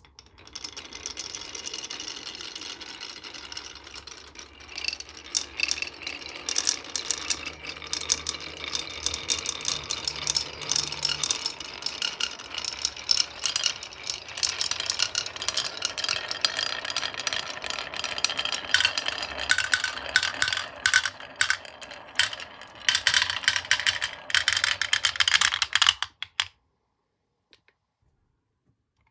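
Marbles rolling down a wooden marble run: a continuous rolling rattle over wooden track with many sharp clicks and knocks as they drop and hit the pieces, busier in the last few seconds, cutting off suddenly near the end.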